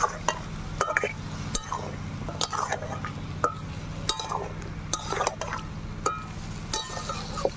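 Flat spatula scraping and clinking against a metal kadai as chicken is stirred through a wet masala paste, with wet squelching from the sauce: the meat being slow-fried (kosha) in the spices. The clinks come irregularly, roughly one or two a second, over a steady low hum.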